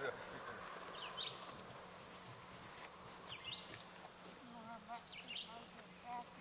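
Steady chorus of insects, a continuous high shrill buzz, with short high chirps a few times.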